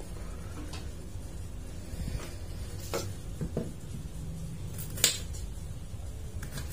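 A few light knocks and taps as two bitter gourds and a kitchen knife are set down and handled on a counter, the sharpest about five seconds in, over a steady low hum.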